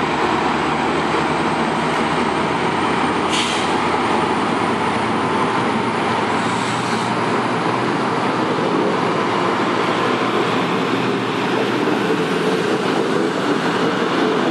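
MPI MP36PH-3C diesel locomotive running with its 16-cylinder EMD 645 engine as the MARC commuter train moves past, its passenger coaches rolling by on the rails in a steady rumble. A brief hiss sounds about three seconds in.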